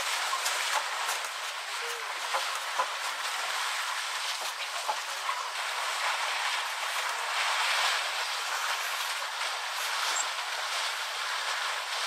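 Water splashing and sloshing as African bush elephants bathe and wallow in a muddy waterhole, a steady wash of noise with many small clicks and knocks through it.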